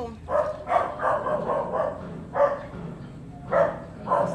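A dog barking in quick runs of several short barks, with pauses of about a second between the runs.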